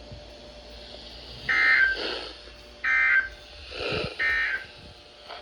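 NOAA Weather Radio Emergency Alert System end-of-message data bursts: three short, buzzy digital tone bursts about a second apart, marking the end of the alert message.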